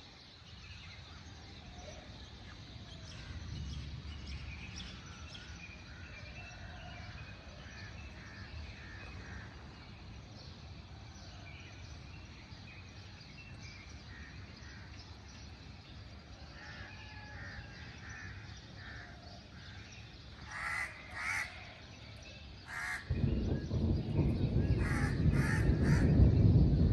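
Birds chirping faintly, then a run of loud, harsh caws in the last seven seconds. About four seconds before the end a loud low rumble comes in under the calls.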